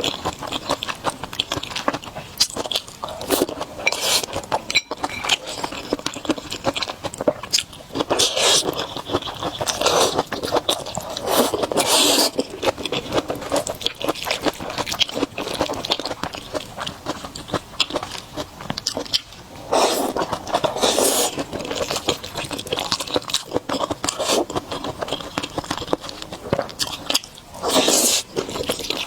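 Close-miked eating sounds: a person chewing and crunching food, with wet mouth sounds and short bursts of noise recurring every second or two.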